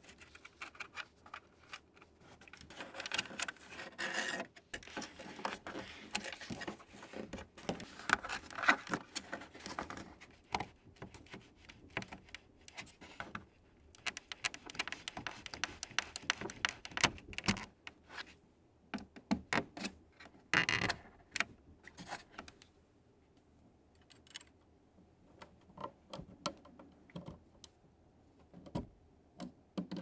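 Close-up clicks, taps and scrapes of plastic being handled as a braided USB cable is pressed into the cable clips of a mechanical keyboard's plastic bottom case. The sounds come thick and fast at first and thin out toward the end.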